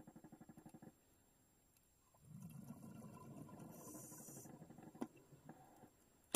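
Faint underwater gurgling of water and bubbles. A rapid pulsing buzz fades out in the first second, low irregular gurgling runs for about three seconds from two seconds in, and a few sharp clicks come near the end.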